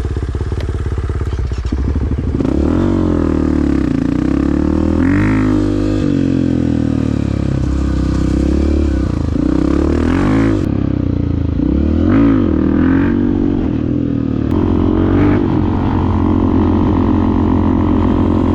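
Dirt bike engine running, its pitch rising and falling again and again as the throttle is opened and eased, then holding steadier near the end.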